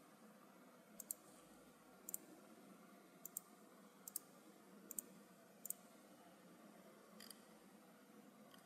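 Computer mouse clicking: sharp clicks, mostly in close pairs, about once a second for the first six seconds and once more faintly near the end, over faint room hiss.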